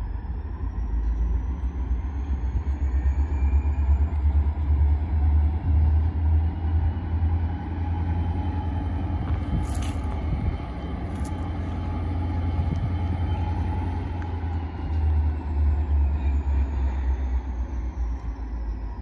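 Diesel locomotives working during yard switching: a heavy low engine rumble with a high, thin whine that climbs over the first few seconds, holds steady, then falls away near the end.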